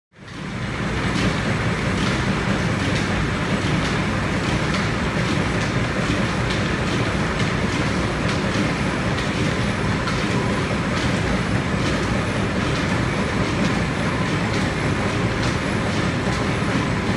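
Lineshaft-driven woodshop machinery running: the overhead line shaft, pulleys and flat belts turning with a steady low rumble and a regular clicking about once a second.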